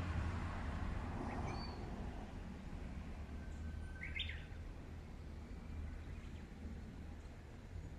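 A Japanese bush warbler sings over a train's low rumble, which slowly fades. The warbler gives a short call near the start and, about four seconds in, a held whistle that breaks into a quick rising flourish.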